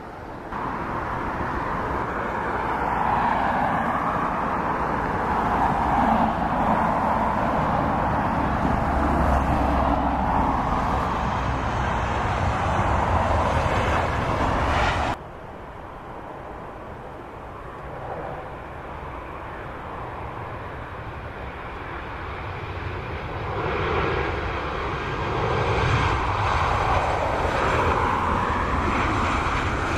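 Airliner jet engines running loudly on the airfield, cutting off abruptly about halfway through. Then a Boeing 737's jet engines grow louder as it comes in to land.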